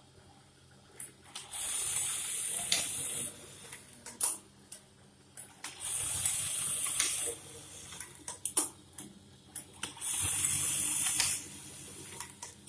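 Brother 814-2 industrial buttonhole sewing machine running three buttonhole cycles, each a steady high-speed run of about a second and a half that stops abruptly. Sharp clicks and knocks come between the cycles.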